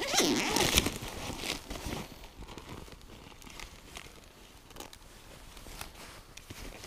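A fabric tackle pouch being opened, loudest in the first second, then clear plastic lure bags crinkling softly with small clicks as they are handled and leafed through.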